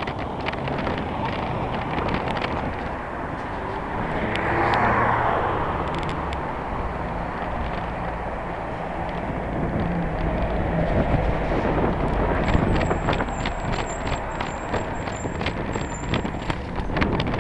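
Road traffic, cars and a truck, passing close by a moving bicycle, with a swell as a vehicle goes by about four to six seconds in. Near the end a thin high squeal sounds for a few seconds over a patter of sharp clicks.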